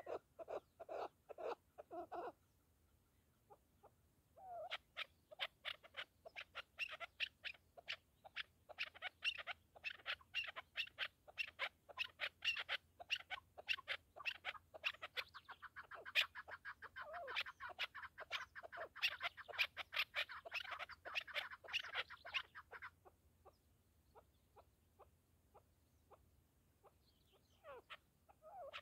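Chukar partridge calling: rhythmic clucking notes at about four a second, a short pause, then a long, fast run of calls that grows louder and denser before breaking off into scattered notes near the end.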